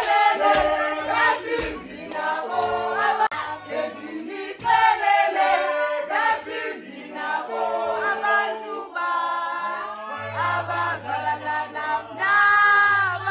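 A song sung by a choir, with several voices singing together over music.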